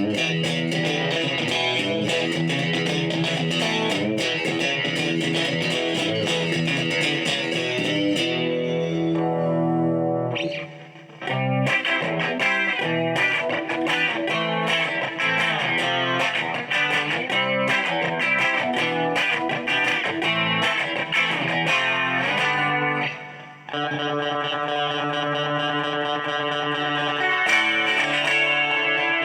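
Strat-style electric guitar (Morgan Legend Series, ash body, rosewood fingerboard) played through an amplifier on a clean tone: a run of picked notes and chords, broken by two short pauses, about ten seconds in and again near the end.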